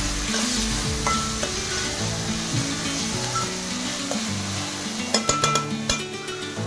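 Chopped vegetables sizzling in oil in a steel kadai on high flame while a steel ladle stirs and scrapes through them. A quick run of metallic clinks about five seconds in.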